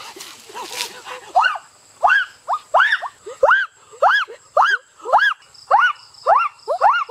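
An animal calling over and over, starting about a second in, each short call rising and then falling in pitch, about two calls a second.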